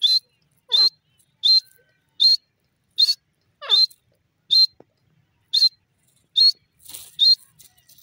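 Grey francolin calling: a steady series of short, shrill whistled notes, about one every three-quarters of a second, twice trailing off into a quick run of falling lower notes.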